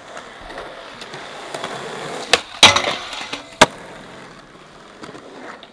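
Skateboard wheels rolling on concrete, building up, then three sharp wooden clacks of the deck hitting the ground between about two and a half and three and a half seconds in, the second one the loudest. After that, quieter rolling.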